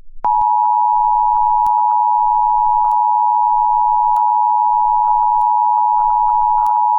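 Emergency Alert System attention signal: a loud, steady, unbroken electronic tone that starts about a quarter second in and holds at one pitch.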